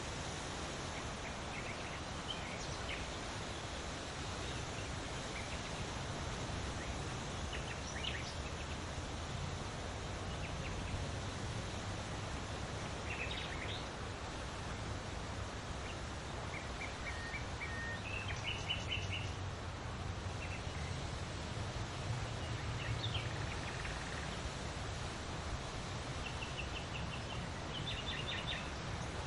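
Wind rustling large leaves in a steady hiss, with a low rumble underneath. Small birds chirp and trill now and then throughout.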